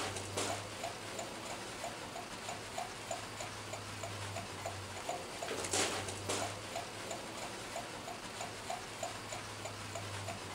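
Steady, even ticking, about three to four ticks a second, over a low hum, with a brief hissing burst at the start and again about six seconds in.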